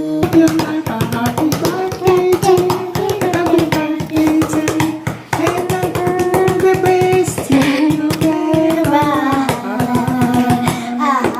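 Music: a song with a sung melody of long held notes over a quick, steady plucked-string accompaniment.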